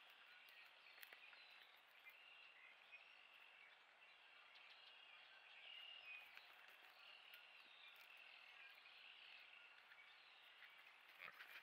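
Faint chorus of frogs trilling steadily, with a few soft clicks.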